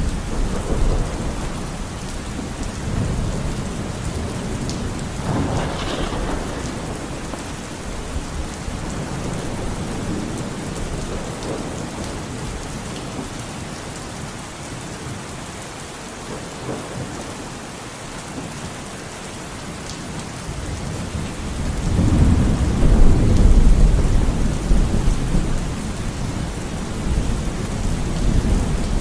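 Steady rain falling, with rolling thunder: a brighter rumble about six seconds in, and a long, loud rumble about three-quarters of the way through.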